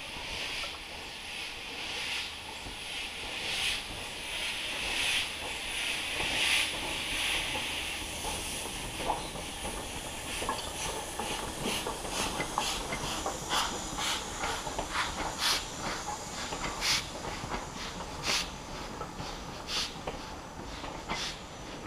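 Steam locomotive, an LNER Gresley K4, pulling away slowly: a loud steam hiss swells in slow chuffs about every second and a half. From about halfway through, the carriages roll past with sharp, irregular clicks of wheels over the rail joints.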